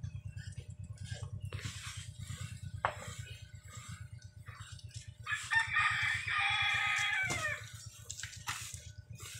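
A rooster crows once about five seconds in, a call of about two seconds that drops in pitch at the end. Under it runs a steady, rapid low pulsing from the motor-driven potter's wheel spinning.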